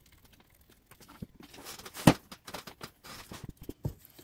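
Irregular scratching and clicking of a cleaning pen worked against a small model-locomotive motor's commutator and metal frame, starting about a second in, with one sharper click about two seconds in.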